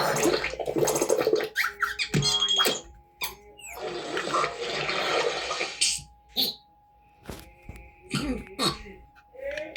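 Cartoon sound effects: two long rushing noises, the second ending about six seconds in. Then come a few sharp knocks and short buzzes over a faint steady tone.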